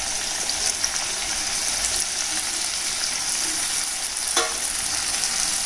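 Drumstick pieces and freshly added chopped tomatoes sizzling in oil in a pan, a steady frying hiss. A single sharp click about four seconds in.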